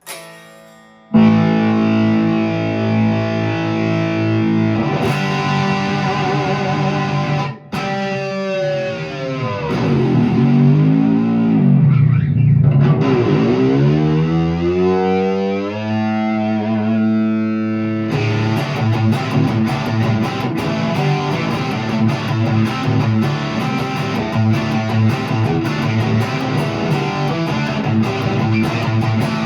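Electric guitar (1989 Fender HM Strat) with distortion through a Peavey Classic 50 amp and Marshall 1965A 4x10 cabinet, ringing out held chords. Through the middle the whole chord slides down in pitch and back up again, a tremolo-arm dive on its Kahler bridge. A little over halfway through it goes into fast, dense riffing.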